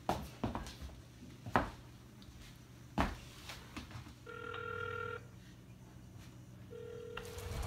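A few sharp clicks and knocks, then a telephone ringing tone: a steady beep lasting about a second, about four seconds in, and a shorter one near the end.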